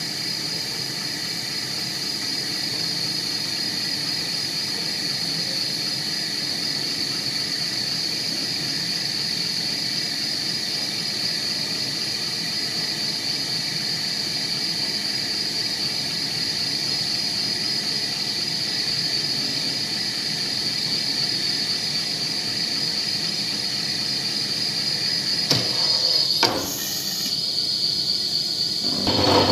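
Axis automatic milling machine running as its cutter mills the grooved pattern into a steel tea-processing roller: a steady high-pitched whine over an even mechanical hum. Near the end come a few clicks and a brief drop in the sound before it picks up again.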